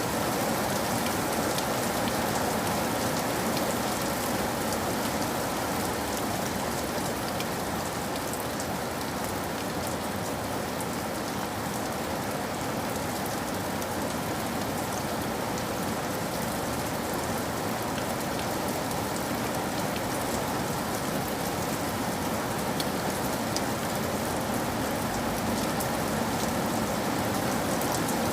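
Steady rain falling: an even, unbroken hiss with scattered drop ticks.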